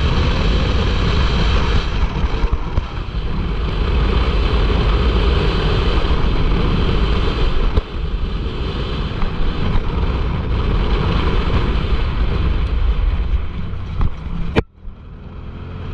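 Turbocharged side-by-side UTV under way on a dirt road: the engine runs steadily under the sound of wind and tyres on dirt. Near the end there is a sharp click, the sound drops out briefly, then the engine builds up again with a rising pitch.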